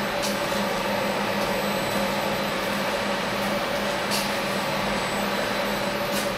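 Steady hum of running machinery, a constant drone with a low tone and a higher tone held under it. There are a couple of faint ticks.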